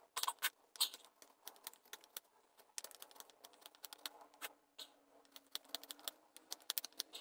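Knife whittling a wooden blank: many quick, short shaving and scraping strokes of the blade on the wood in rapid, irregular succession, the pace quickened by sped-up footage.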